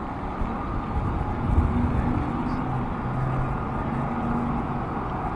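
Steady street noise from riding a bicycle along a town street past parked vehicles: low rumble and wind, with a motor vehicle's engine running nearby.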